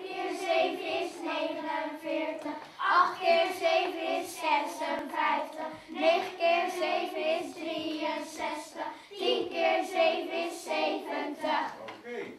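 Children singing a song, in sung phrases of about three seconds each.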